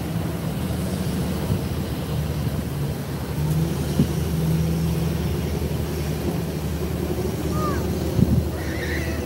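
Vehicle engine idling, a steady low hum, with a couple of soft thumps about eight seconds in and two brief high chirps near the end.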